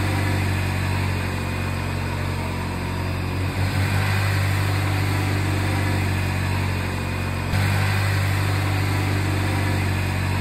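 1987 Buick GNX's turbocharged 3.8-litre V6 idling with a steady, even hum, with a brief flutter about four seconds in.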